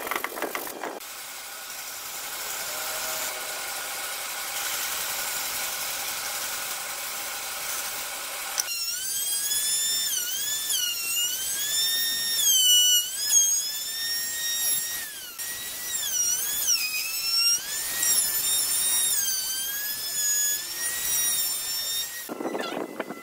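Handheld electric router running with a high whine that dips and recovers in pitch as the bit cuts along the edge of a clamped wooden board. This whine takes up roughly the last two-thirds. Before it there is a steadier machine hiss.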